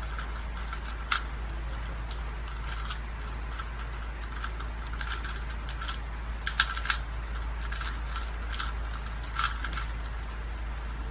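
Plastic Rubik's cube being turned by hand: irregular clicking of the layers as they rotate, with a few sharper clacks, one about a second in, two close together past the middle and one near the end. A steady low hum runs underneath.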